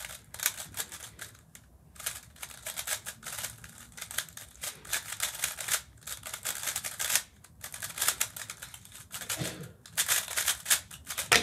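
Peak Cube S3R 3x3 speedcube being turned fast during a timed solve: rapid clicking and clacking of its plastic layers, with a few short pauses.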